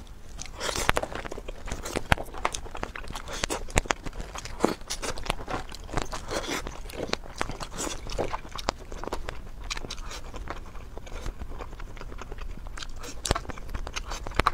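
Close-miked eating: chewing and crunching bites with many sharp, irregular clicks, as mussels are scooped from their shells with a spoon and eaten.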